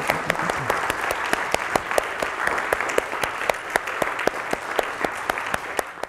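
Audience applauding, many people clapping at once in a steady patter.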